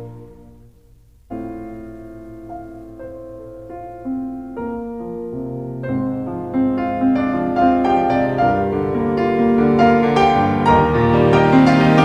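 Background music: the previous track fades out, then a solo piano piece begins about a second in, starting with sparse notes and building to fuller, louder playing.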